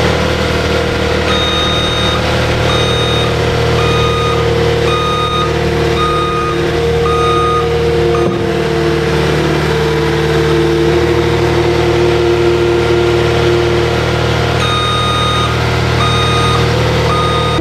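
Steady engine-like hum with a repeating electronic beep, like a reversing alarm, about one beep every 0.8 s, which stops partway through and starts again near the end.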